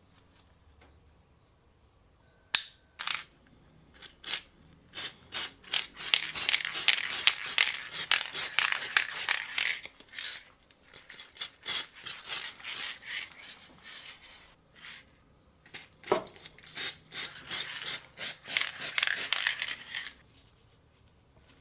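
Steel parts of an antique Bulldog revolver handled on a wooden bench: a sharp metal click about two and a half seconds in, then long runs of rapid small clicks and scrapes, with a duller knock partway through.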